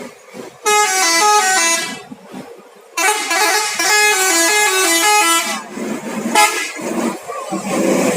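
Bus's telolet musical horn playing a tune of quick stepped notes. A short phrase of about a second comes first, then after a pause a longer phrase of about two and a half seconds, then a brief toot near the end.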